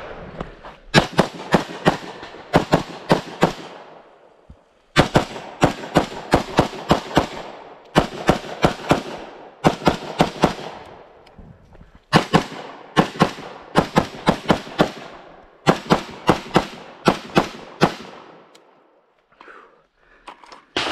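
Strings of fast semi-automatic rifle shots fired close to the microphone, five to seven shots in quick succession per string, in five strings with short pauses between them. The shooting stops a few seconds before the end.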